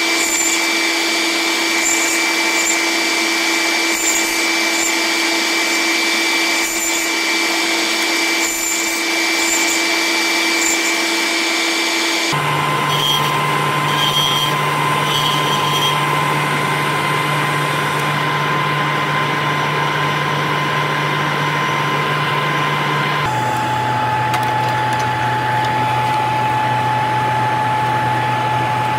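Small wood lathe and dust extractor running steadily while a turning tool scrapes the spinning epoxy resin pen blanks. The steady running tone changes suddenly about twelve seconds in and again about twenty-three seconds in.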